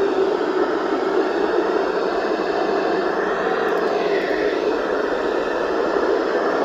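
Steady hiss of radio static from a receiver picking up no clear signal, with faint whistles sliding up and down through it near the middle.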